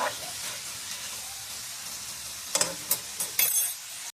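Pieces of bacon sizzling steadily as they fry in a pan, with a few sharp clicks from stirring about two and a half to three and a half seconds in.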